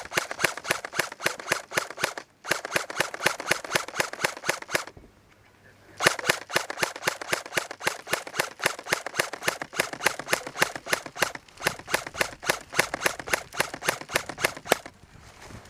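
Airsoft gun firing rapid, evenly spaced shots, about five a second, in long strings. Two strings of a couple of seconds each, a pause of about a second, then one long string of about nine seconds.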